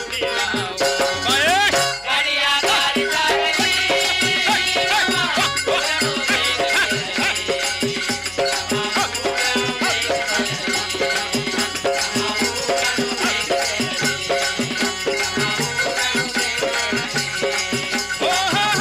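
Folk dance music: a singing voice over a steady beat of drums and rattling percussion.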